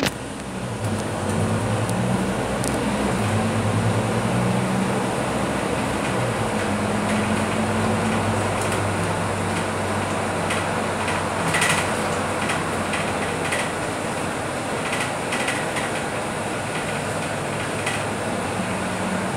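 Inside a Scania K310UB city bus under way: its nine-litre five-cylinder diesel and drivetrain drone steadily, the low hum shifting in pitch a few times, over road noise. Light clicks and rattles come now and then in the second half.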